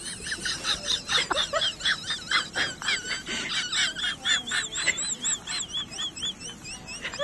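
High-pitched bird-like chirping: many short overlapping chirps at first, settling in the second half into a steady run of rising-and-falling notes at about three a second.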